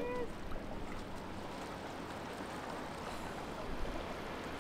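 Steady wind and water noise: small waves lapping at a rocky shore, with wind on the microphone.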